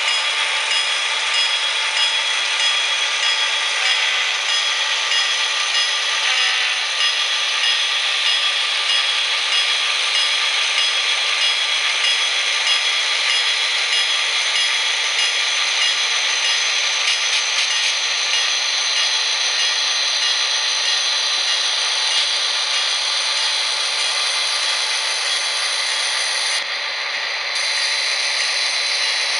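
H0 scale model BNSF diesel locomotives (SD40-2 and GE AC4400 models) and hopper cars running along the track: a steady, high-pitched mechanical whirring from the motors and wheels on the rails, with little bass. The highest tones drop out briefly near the end.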